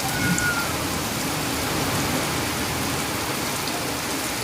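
Rain falling steadily, a dense even hiss of drops on surfaces.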